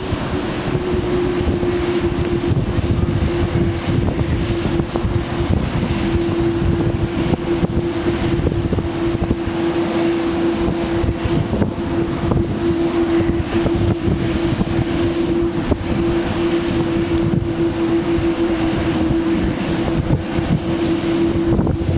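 Boeing 787-8 jet engines running at taxi power as the airliner rolls by, a steady tone over the noise, with strong wind buffeting the microphone.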